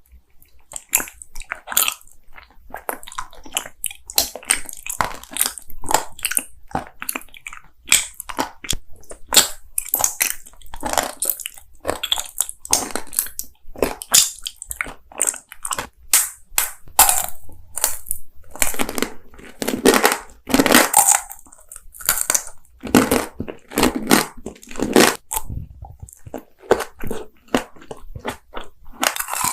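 A person biting and chewing jelly sweets: a continuous run of crunchy bites and wet chewing, irregular and dense.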